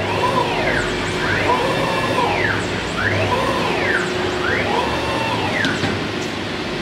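CIMTECH 1325 CNC wood router running a job: its axis drive motors whine in four rising-and-falling sweeps about a second and a half apart as the gantry moves back and forth, over a steady hum.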